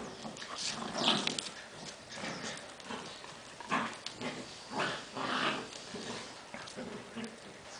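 Czechoslovakian wolfdog pups play-fighting, making short, rough, irregular dog sounds now and then, the strongest about a second in and again around four and five seconds.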